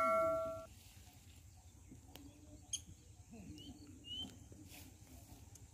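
A ringing bell chime, the sound effect of a YouTube subscribe-button animation, dies away in the first moment. Then comes quiet riverbank ambience with a faint murmur of low voices and a couple of short bird chirps.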